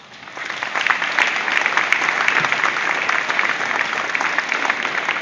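Audience applauding, the clapping swelling within the first half second and then holding steady and dense.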